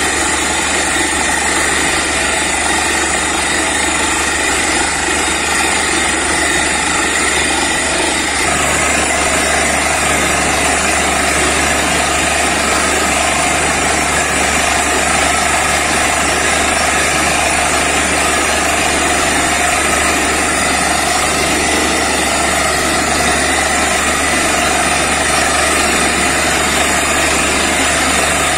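Truck-mounted borewell drilling rig working: its engine and air compressor running loudly and steadily while it drills, flushing muddy water out of the bore.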